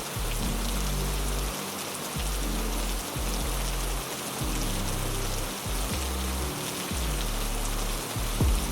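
Steady heavy rain hiss, with a low droning pad underneath that shifts in steps every second or so. One brief louder knock near the end.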